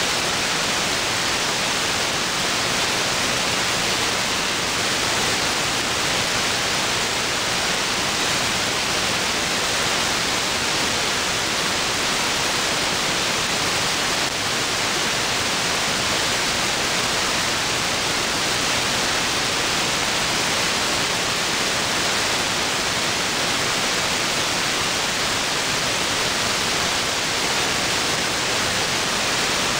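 Steady hiss of static from an SDRplay RSP1 software-defined radio in AM mode on an idle aircraft-band channel: the dead air between air traffic control transmissions, with no signal being received.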